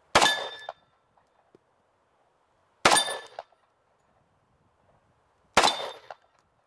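Three .45 ACP shots from an M1911 pistol, slow deliberate fire about two and a half seconds apart, each followed by a short metallic ring that fits hits on steel plate targets.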